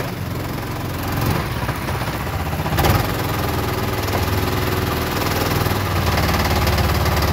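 Small gas engine of a Swamprunner longtail mud motor running steadily, pushing the jon boat along. There is one sharp knock about three seconds in.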